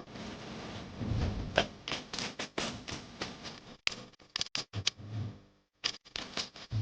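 Kitchen cooking sounds: irregular clicks and knocks, as of a spoon or spatula working in a pan, with a few abrupt breaks near the end.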